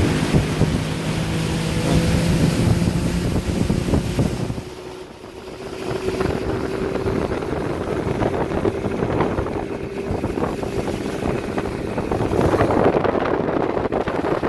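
Boat motor running with the boat under way, wind buffeting the microphone and water rushing past the hull. About five seconds in, the engine note dips briefly, then it carries on with a steady, higher hum.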